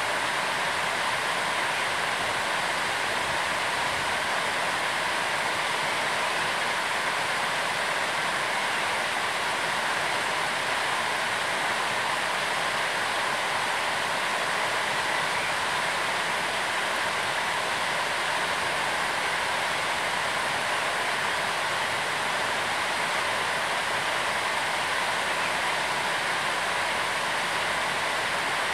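Steady rushing noise, even and unbroken.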